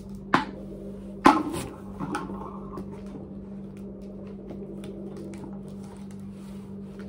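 Hard plastic clicking and knocking as a manual drinking-water pump is pushed and seated onto the neck of a large bottled-water jug. Two sharp knocks come in the first second and a half, then lighter clicks and rattles, over a steady low hum.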